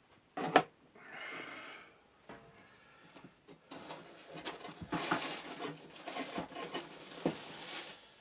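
Hands handling small parts of a mini desk fan during disassembly: a sharp click about half a second in, a short hiss, then a run of small clicks, taps and rustling in the second half.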